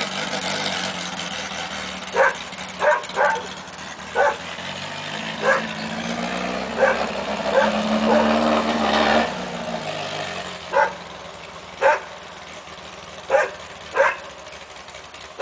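A dog barking about a dozen times, often in quick pairs, over the distant running of a VW-based dune buggy's 1855cc air-cooled engine. The engine swells about eight seconds in, then fades away after about ten seconds, leaving the barks.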